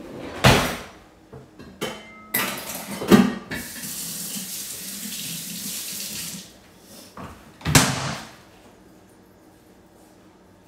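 Kitchen tap running for about three seconds, a steady hiss of water. Three loud sharp knocks of kitchenware come before, at the start of and after the running water.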